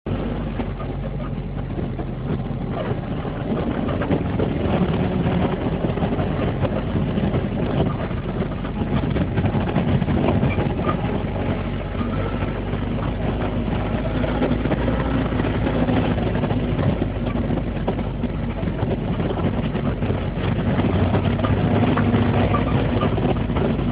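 A vehicle's engine running steadily as it drives along a potholed road.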